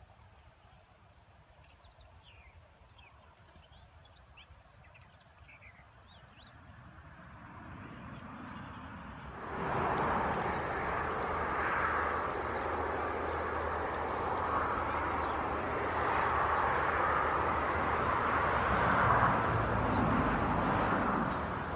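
Outdoor background: a few faint bird chirps over quiet, then about ten seconds in a much louder steady rushing noise sets in and continues.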